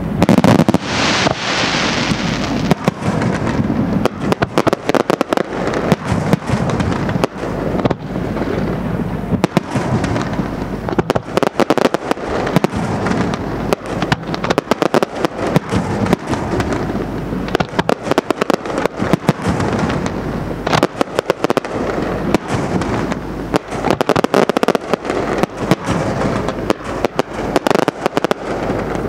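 Fireworks display: a dense, rapid run of aerial shell bursts and cracking reports, several bangs a second, with the loudest blasts right at the start, stopping abruptly at the end.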